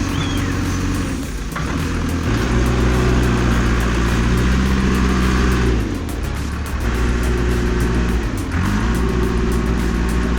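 A heavy machine's diesel engine running under load, its pitch shifting several times and rising briefly near the end as it revs, with background music.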